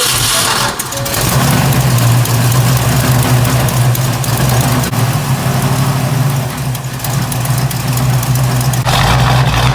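Freshly rebuilt Ford 289 Hi-Po V8 running loud and steady through long-tube headers, just after firing up for its first camshaft break-in run. It is a little uneven for about the first second, then settles into an even, fast run.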